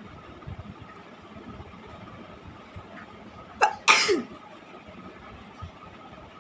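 A woman sneezes once, about four seconds in: a short sharp catch of breath, then a loud sneeze whose voice falls in pitch at the end.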